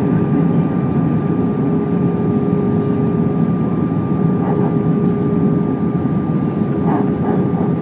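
Airbus A320 cabin noise on approach: a steady rush of engines and airflow with a constant hum-like tone running through it, as heard from a seat over the wing with the flaps extended.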